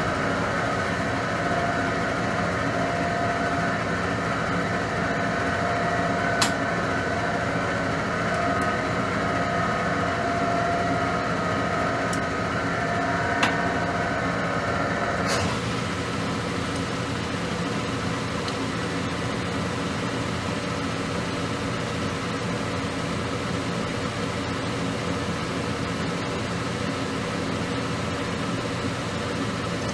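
Metal lathe running steadily: an even machine hum with a higher whine over it that drops away about halfway through, leaving the lower hum. A few sharp ticks in the first half.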